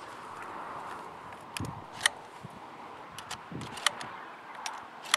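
Sharp metallic clicks and clacks of a shotgun's action being handled as it is loaded with cartridges: about half a dozen separate clicks, two of them with a soft dull knock.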